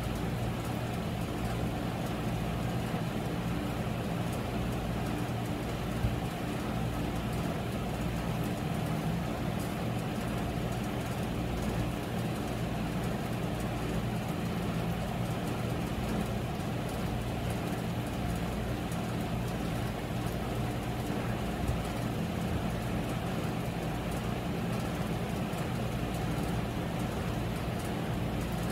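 Steady low mechanical hum and rumble with faint steady tones, much like distant road traffic, holding level throughout.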